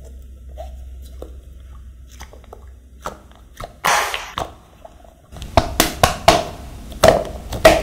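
Small plastic clicks and rubbing as the lid of a small plastic candy container is worked open, then from a little past the middle a run of sharp clicks as the container is tipped and small hard candies drop into a plastic toy bathtub.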